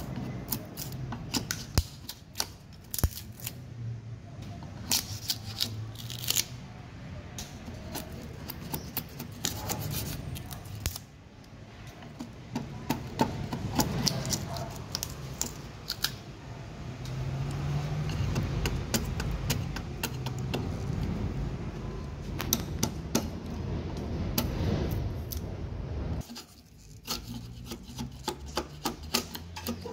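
A steel chisel scraping and peeling bark off a log mounted in a wood lathe: irregular crackling snaps and scrapes as bark chips break away, over a low steady hum. The sound drops briefly near the end, then the crackling starts again.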